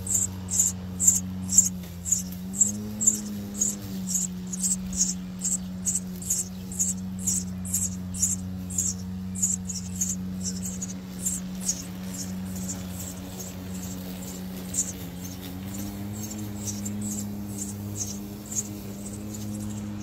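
Eurasian tree sparrow nestlings begging to be fed: rapid thin, very high-pitched cheeps, about two or three a second, thinning out in the second half, over a steady low hum.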